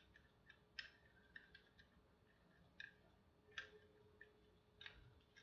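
Faint, scattered plastic clicks, half a dozen or so, of a fire alarm horn being pushed into the slots of its mounting plate and twisted to lock it in.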